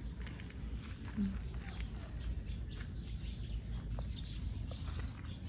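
Outdoor farmyard ambience: faint, scattered bird chirps over a steady low rumble of wind or mic handling, with one brief low animal-like call about a second in.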